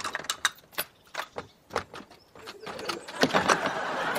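Many door locks being undone one after another: a quick, irregular run of sharp metallic clicks and clacks. Audience laughter swells in about halfway through and builds under the last clicks.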